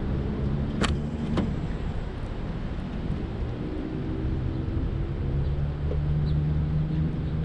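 Car engine idling with a steady low hum. Two sharp clicks come about a second in.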